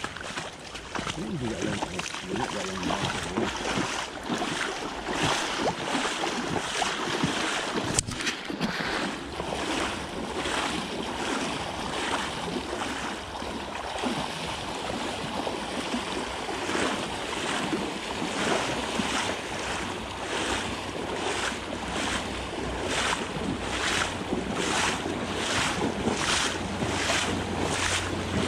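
Wading footsteps sloshing through shin-deep floodwater, one splashing step after another in a steady walking rhythm that becomes clearer partway through.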